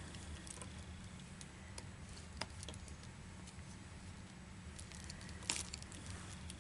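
Faint scattered clicks and soft rustles of a latch hook tool and rug yarn being worked through the canvas, with one brief louder rustle about five and a half seconds in, over a low steady hum.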